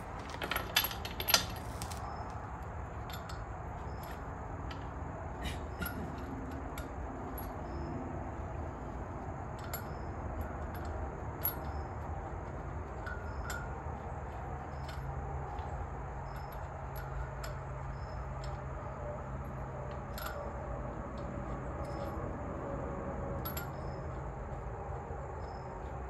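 Metal hand tools clinking: a quick cluster of loud clinks about a second in, then scattered light clicks and taps over a steady background hum.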